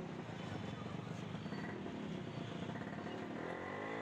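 Busy street traffic, with a motorcycle engine passing close near the end, its pitch rising and then falling.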